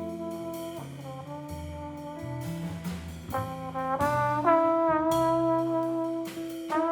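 Jazz quartet playing: a trombone carries a slow melody of long held notes over guitar, bass and drums with cymbals, the band growing louder about halfway through.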